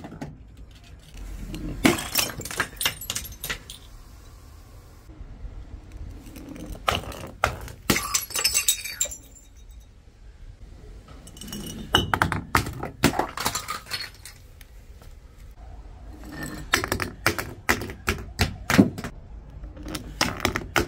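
Bottles and a glass jar tumbling down concrete steps, knocking against the step edges and breaking, in several bursts of rapid clattering impacts separated by quieter pauses.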